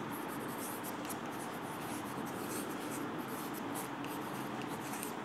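Chalk scratching on a chalkboard as words are written: a run of short, irregular strokes, over a steady background hiss.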